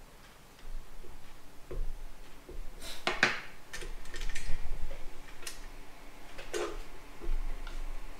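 Clicks and knocks of parts being handled as an ice cream maker bowl is fitted to a KitchenAid Artisan tilt-head stand mixer and its head is tilted up and lowered, with the loudest clack a little over three seconds in.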